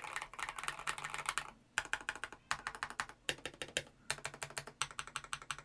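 Typing on an Eyooso K620 tenkeyless mechanical keyboard with a siliconed case interior: runs of quick keystrokes in several bursts with short pauses between them.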